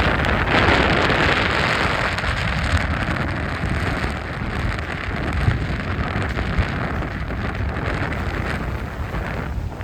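Strong wind buffeting the phone's microphone in a steady low rumble over the loud hiss of heavy surf breaking on the beach. The hiss drops away near the end.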